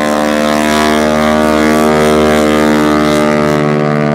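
Piston-engine propeller aircraft running at takeoff power close by: a loud, steady drone with many evenly spaced tones, the pitch wavering only slightly.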